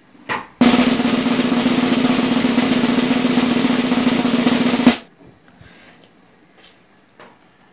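Snare drum roll sound effect, about four seconds long, starting just after the beginning and cutting off abruptly.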